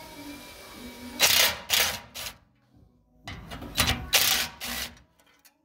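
DeWalt 20V cordless impact gun driving the last bolts through a socket in short hammering bursts: three quick bursts about a second in, then three more near four seconds, with a near-silent gap between.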